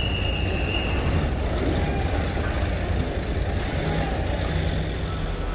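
An engine idling with a steady low rumble. A thin high tone runs over it for about the first second.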